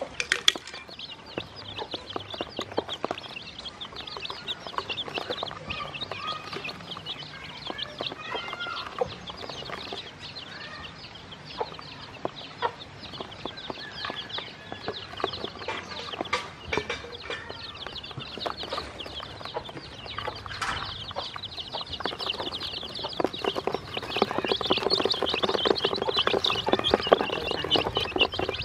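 A brood of domestic chicken chicks peeping continuously, many high short calls overlapping, with scattered light taps; the peeping gets louder and busier over the last several seconds.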